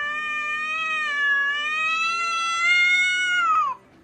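A ginger cat's long, drawn-out yowl at another cat, a hostile confrontation call held on one wavering pitch for several seconds, dropping in pitch as it breaks off near the end.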